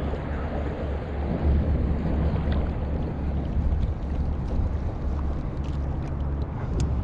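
Wind buffeting the microphone: a steady low rumble, with a few faint ticks in the second half.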